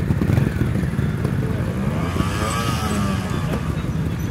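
Trials motorcycle engine running with a chugging idle, revved once about two seconds in, the pitch rising and then falling back.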